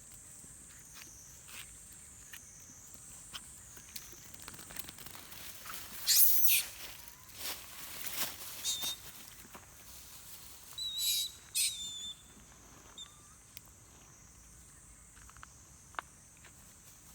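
Outdoor ambience: a steady high-pitched buzz with scattered light clicks and rustles. Two loud bursts of shrill, high calls come about six and eleven seconds in.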